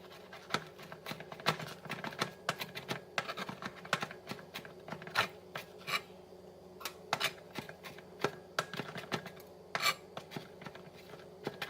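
Kitchen knife chopping cilantro on a cutting board: a run of quick, irregular taps, mincing the herb finely.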